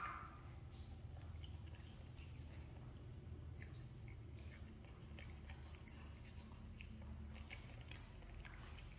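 Young macaque chewing corn kernels bitten off the cob: faint, scattered small clicks and crunches.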